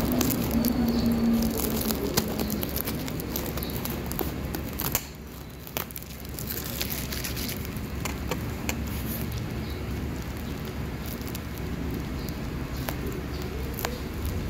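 Plastic mailer and bubble wrap crinkling as they are handled and cut open with small scissors, with scattered sharp clicks and snips. The rustling stops briefly about five seconds in.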